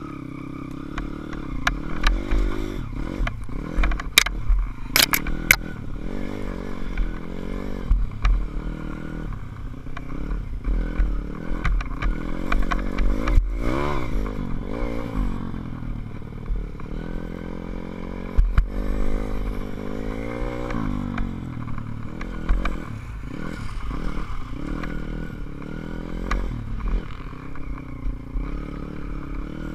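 SSR150 pit bike's four-stroke single-cylinder engine running under the rider, its pitch rising and falling again and again as the throttle is worked, with a few sharp clicks and clatters about four to five seconds in.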